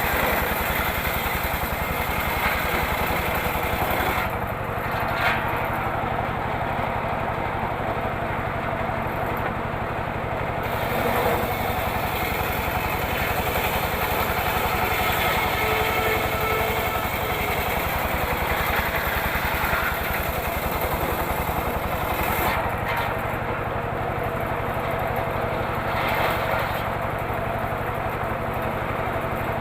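Small engine of a homemade circular saw running steadily while the saw rips through teak wood, with the higher hiss easing off and returning a couple of times.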